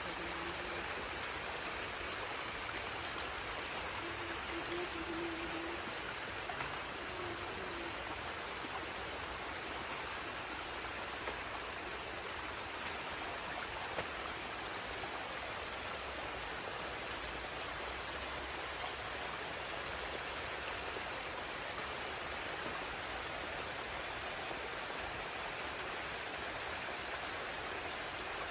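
Small stream splashing and trickling down a rocky channel: a steady, even rush of water.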